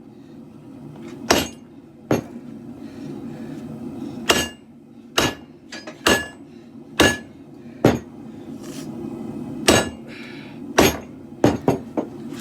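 Hand hammer striking hot leaf-spring steel on an anvil while drawing out a sword blade: about a dozen blows, roughly one a second, with a quick cluster of three near the end. Several blows carry a short metallic ring, over the steady low roar of a propane forge burner.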